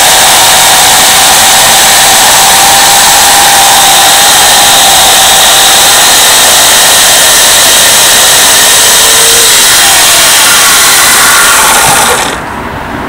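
Portland 14-inch 9-amp electric chainsaw cutting through a thick log, its motor running steadily under load with a held whine. About twelve seconds in, the cut finishes and the sound drops off sharply.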